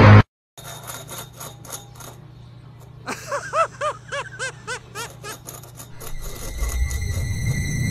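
A cat pawing at a ceramic bowl on a stone counter: light taps and scraping, with a quick run of short squeaks in the middle. Music fades in near the end.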